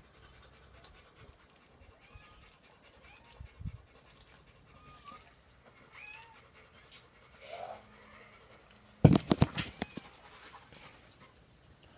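Faint, short, high mews from kittens, a few seconds apart. About nine seconds in comes a quick burst of loud knocks and clatter.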